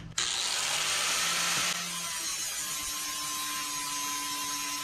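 Angle grinder switched on and grinding the end of a bent steel tube, shaving down the high spots so it fits flush against the frame rail. It starts abruptly and runs steadily, dropping slightly in level about two seconds in, when a faint steady whine comes in.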